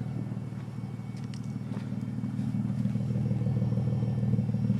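2005 Nissan Maxima's 3.5-litre V6 running steadily at idle, with no sputter from the exhaust.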